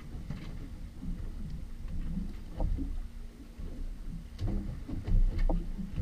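Water slapping and lapping against the hull of a small boat drifting on open sea, over a low uneven rumble, with a few sharp knocks and slaps.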